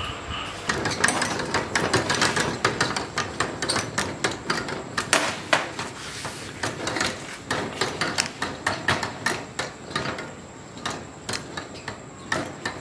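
Homemade bevel-gear pedal-drive gearbox turned by hand at its pedal cranks, the steel gears giving a fast, irregular clatter of clicks and knocks.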